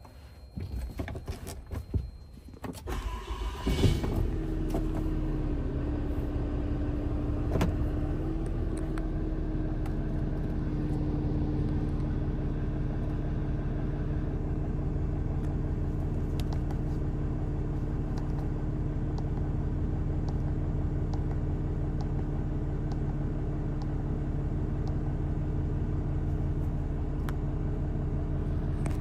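A 6.7-litre Cummins inline-six turbo diesel starts about three to four seconds in, then idles steadily with a low rumble and a constant tone over it, heard from inside the cab.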